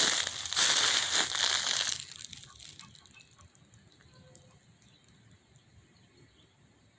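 Footsteps crunching through dry leaf litter, several loud crinkly steps in the first two seconds, then stopping. After that only a faint outdoor background.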